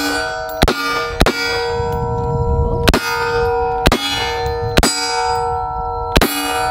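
Heckler & Koch SL8-1 semi-automatic 5.56 rifle firing six shots at an uneven pace. The steel target plates ring with a lasting metallic clang after the hits.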